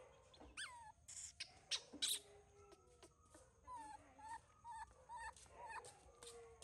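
Baby monkey giving faint, short squeaky calls: one falling squeal near the start, then a quick string of brief wavering squeaks in the second half. A few sharp clicks come in between, about a second or two in.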